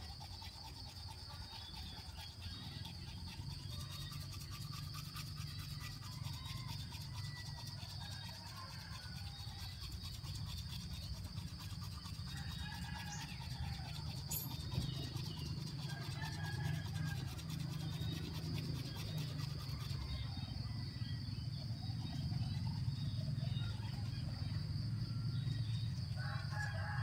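Teeth being brushed with a toothbrush: a rapid, continuous scrubbing.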